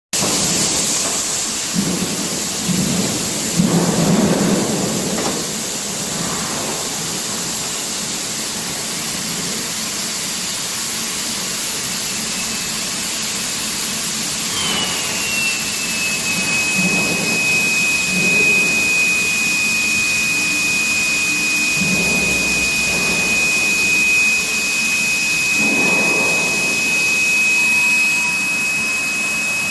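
Induction rail-end heating machine over steady industrial noise. About halfway through its power supply and coil start a high whine that dips slightly in pitch, then holds steady. Irregular low thuds from the machinery are heard in the first half and later on.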